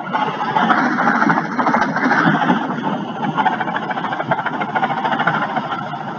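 Robinson R44 helicopter's piston engine and main rotor running as it lifts off and comes low toward the microphone, overpitched on takeoff so that its rotor RPM is decaying.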